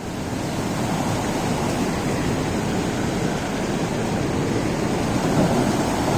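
Rainwater rushing steadily, a dense, even rush of flowing water.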